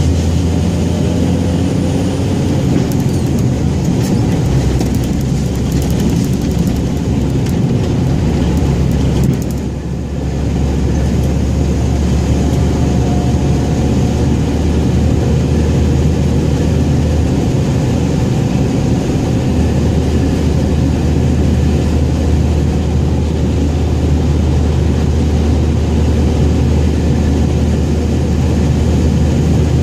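Scania 114G 340 truck's diesel engine running with a steady low drone that dips briefly about ten seconds in, then picks up again.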